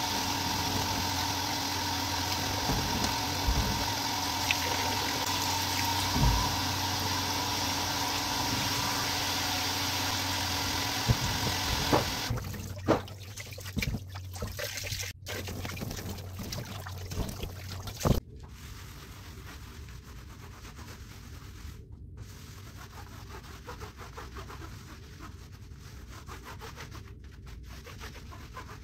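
Running water splashing onto a rubber puzzle-mat tile as it is rinsed, with a steady low hum beneath it. About twelve seconds in the splashing falls away to scattered knocks and handling of the tile, then to a quieter low sound.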